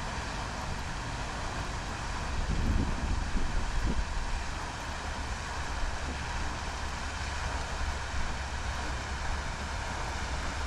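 Steady rushing outdoor noise with a low rumble, swelling for a moment about three seconds in.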